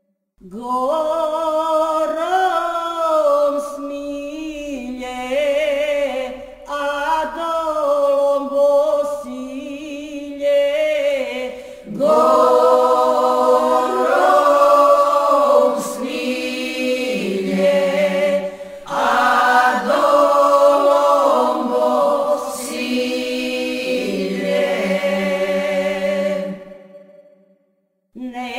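Unaccompanied group singing of a traditional Serbian folk song, several voices in close parallel parts. The voices sing long phrases with short breaks between them.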